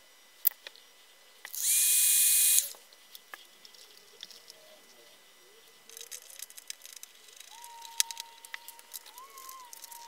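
A brief whir, about a second long, from a small power tool about a second and a half in. Later come light clicks and metallic scraping as a screwdriver works the screw terminals on the back of a boat's switch panel.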